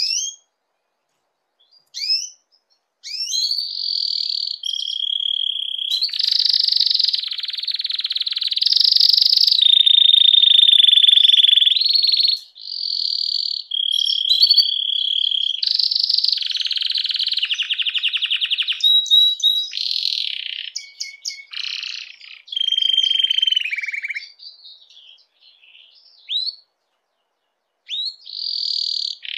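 Domestic canary singing in breeding condition: a few sharp upswept chirps, then a long song of rapid rolling trills that keep switching pitch and speed, pausing briefly before starting again near the end.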